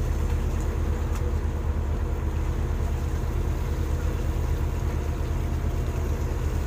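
Shrimp trawler's engine running steadily: a low, even drone.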